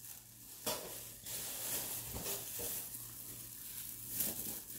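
Soft, irregular rustling from packaging and items being handled and moved about.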